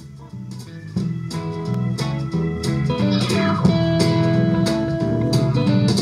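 Guitar-led blues music with bass and drums played through the 1952 Saba Freiburg W2 valve radio's loudspeaker, turned up sharply about a second in.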